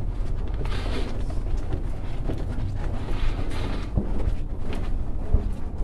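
Low, steady rumble of a handheld camera being carried while walking, with a few soft thumps of footsteps and handling on carpet.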